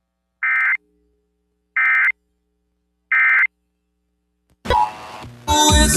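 Emergency Alert System end-of-message code: three short bursts of digital data tones about a second and a half apart, marking the end of a severe thunderstorm warning. Near the end the radio station's music cuts back in loudly.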